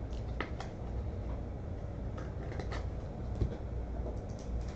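Faint clicks and rustles of vintage baseball cards being handled at a desk, over a steady low hum.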